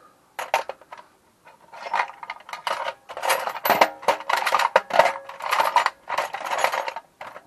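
Metal hand tools clicking and clinking in quick runs, several bursts each about half a second to a second long.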